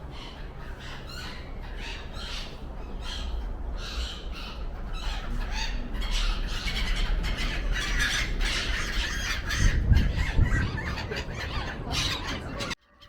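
A flock of gulls calling, many short squawks overlapping, over a low rumble that swells about ten seconds in. The sound cuts off abruptly near the end.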